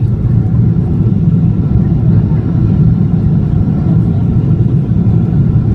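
Loud, steady low rumble heard inside a wide-body airliner's cabin during the landing rollout on the runway: engine and landing-gear noise with the wing spoilers deployed.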